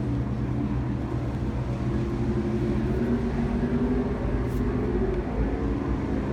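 Steady drone of racing powerboat engines, several tones whose pitch drifts slightly up and down as the boats run.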